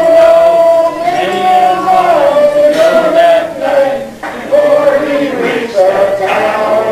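Several men singing together, holding long, drawn-out notes.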